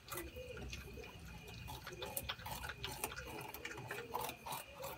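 Porcupines gnawing and chewing their food, an irregular run of crisp crunching clicks, several a second.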